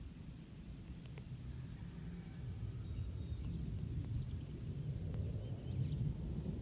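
Distant low rumble of an Airbus A350-900's Rolls-Royce Trent XWB jet engines on landing approach, growing steadily louder as the airliner comes nearer. Birds chirp over it, and an insect keeps up a high ticking about six times a second.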